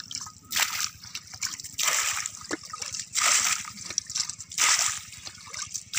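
Muddy water being bailed out of a shallow ditch by hand with a plastic container: a splash and slosh as each scoop is dumped, about five in a row, roughly one every second and a quarter.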